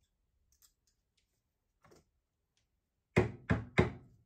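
A portafilter with a dosing funnel on it is knocked down three times, about a third of a second apart, to settle freshly ground coffee in the basket. Before the knocks come a few faint ticks of the WDT tool's needles stirring the grounds.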